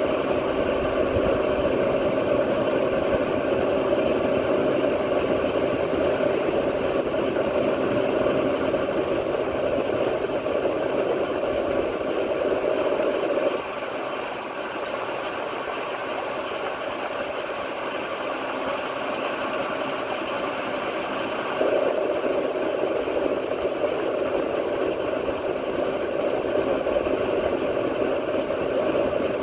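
1966 Lincoln Idealarc 250 welder energised and idling with no arc: a steady mains hum from its transformer with the rush of its cooling fan. The sound drops a little about 14 seconds in and comes back up about 8 seconds later.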